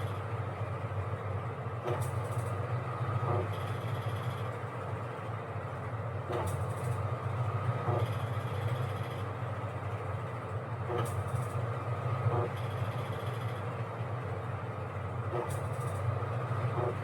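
Washing machine running: a steady low hum with short sounds from the turning drum that come in pairs, the pair repeating about every four and a half seconds.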